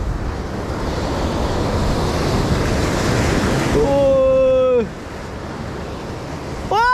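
Surf crashing and washing over rocks, with wind on the microphone. About four seconds in, a person calls out once, a held, slightly falling cry lasting about a second. The surf drops quieter after that.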